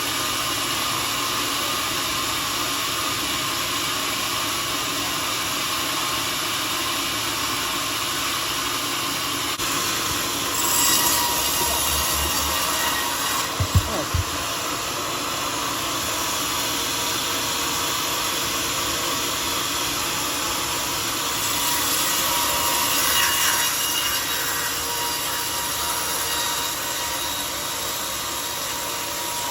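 Homemade sawmill's blade running steadily through a mahogany log. The sawing grows brighter and a little louder twice, and there are a couple of sharp knocks about fourteen seconds in.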